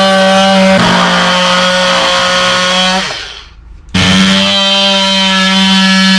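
Electric power tool motor running at a steady pitch. It winds down and stops about three seconds in, then starts again abruptly about a second later and keeps running.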